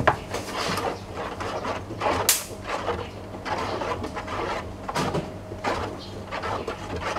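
Wooden spoon stirring thick, foamy homemade dish soap in a plastic basin, swishing through the liquid and rubbing against the tub in repeated strokes, with one sharp tick about two seconds in. The stirring works in table salt to thicken the soap.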